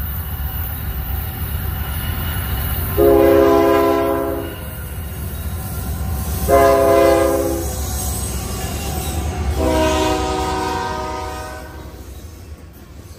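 Union Pacific diesel freight locomotives sounding their multi-chime air horn in three blasts, the last the longest, over the steady rumble of the engines and the train rolling past. The rumble drops away near the end as the locomotives pass and the hopper cars follow.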